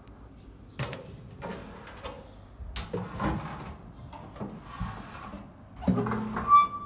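Irregular rubbing and knocking handling noises against the electric oven's metal casing, with several sharp clicks. About six and a half seconds in comes a short metallic ring, the loudest sound.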